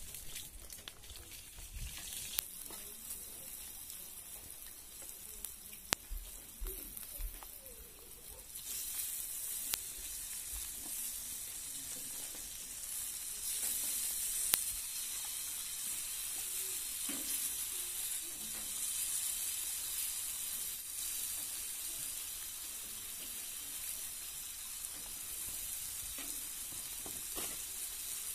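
Banana skipper caterpillars frying in a metal pan over a wood fire: a steady sizzle that grows louder about nine seconds in and then holds, with a few sharp clicks.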